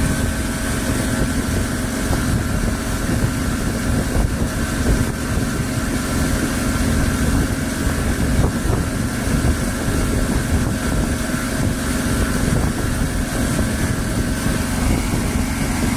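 Yamaha V6 150 two-stroke outboard motor running steadily with the boat under way, mixed with the rush of water from the wake.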